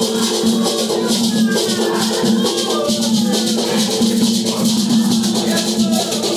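Batuque ceremonial music: shakers rattling in a fast, even rhythm, with voices over steady lower tones.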